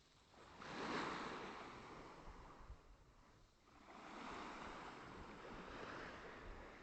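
Small sea waves washing onto the shore, faint. One swell comes about a second in, and a longer one from about four seconds in.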